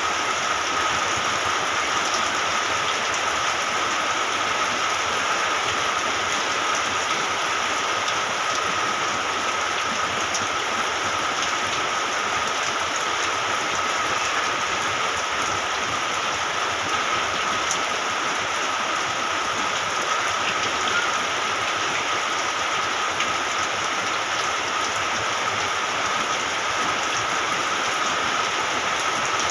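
Steady rain falling, an even unbroken hiss with a thin steady tone running underneath.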